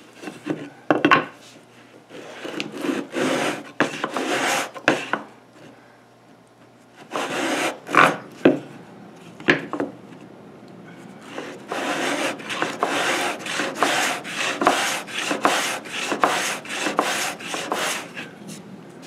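Sandpaper glued to a knob-handled block, rubbed back and forth along a sanding shooting board to true a miter on the end of a thin wooden piece: rasping strokes in groups, a pause about five seconds in, then a run of quicker strokes, about two a second, through the second half.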